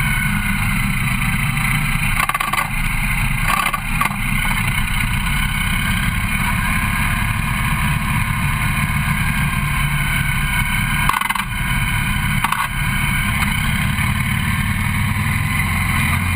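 Motorcycle riding along at road speed, heard from a camera mounted on the bike: a steady engine rumble mixed with rushing wind noise, with a few brief dips in the rumble.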